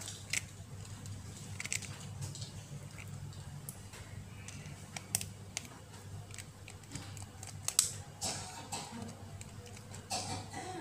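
Small Phillips screwdriver undoing the tiny screws of a smartphone's internal metal cover plate: scattered light clicks and ticks of the tool on screws and frame, a handful of them at irregular moments, over a steady low hum.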